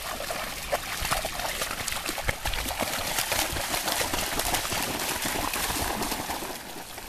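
Belgian Shepherd dogs wading and splashing through shallow lake water: a continuous run of small, irregular splashes and sloshes.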